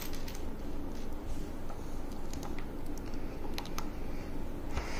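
Small plastic LEGO bricks clicking and tapping as fingers handle them and press them onto a model, a scatter of light clicks with several close together in the middle of the stretch.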